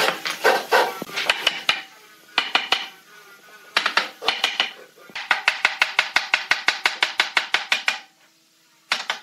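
Wooden mallet knocking on a pine bed-frame rail, driving it down onto the legs' joints. The strikes come in short runs, then a long, fast run of about nine knocks a second, and stop about 8 s in.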